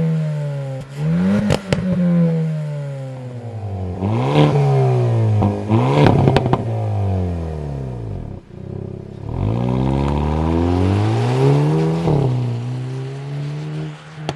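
Hyundai N hot hatch's turbocharged four-cylinder engine revved repeatedly, the revs climbing and falling about every two seconds with one longer climb in the second half. Sharp pops and crackles from the exhaust come as the revs drop.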